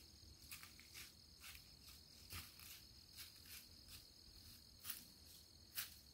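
Faint, irregular crunching of a whitetail deer's hooves in dry fallen leaves, about a dozen soft steps with the loudest near the end, over a faint steady high-pitched hum.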